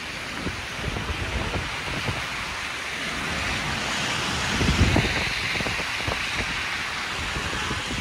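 Street traffic in a snowstorm: a vehicle's tyres hiss past on the snowy road, the sound swelling to a peak about halfway through and then fading. Uneven low buffeting of wind on the microphone runs underneath.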